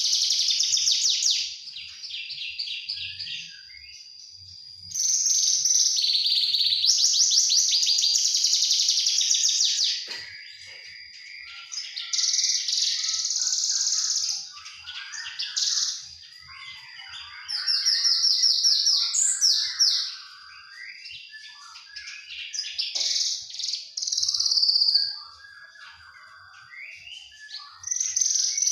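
A young Javan bush lark singing: loud bouts of rapid, repeated high trilled notes lasting a few seconds each, alternating with quieter, varied twittering phrases.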